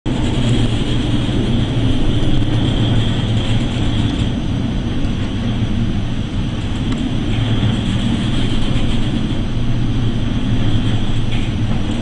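Ship ploughing through heavy storm seas: a steady, loud rumble with a low hum under a constant rush of wind and sea noise.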